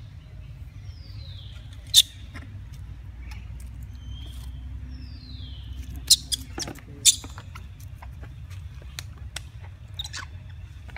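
Long-tailed macaques at close quarters: scattered sharp clicks and snaps, loudest about two seconds in and again twice near the middle, and two short high squeaks that fall in pitch, over a steady low outdoor rumble.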